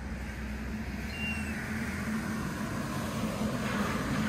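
Road traffic passing beyond the garden: a steady rumble and hiss that swells toward the end, like tyres on a wet road. One brief high chirp sounds about a second in.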